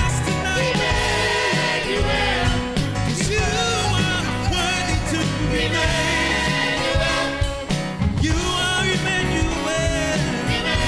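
Church worship team singing together into microphones over a live band with keyboard and guitar, several voices with a lead singer on top.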